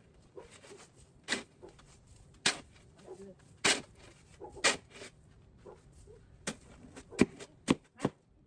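A series of irregular short knocks and scrapes, about a dozen, with three sharp ones close together near the end.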